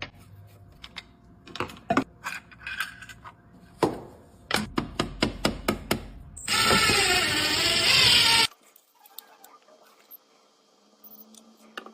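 A run of sharp clicks and knocks of hand work on hardware, then about two seconds of a power tool running, which cuts off suddenly.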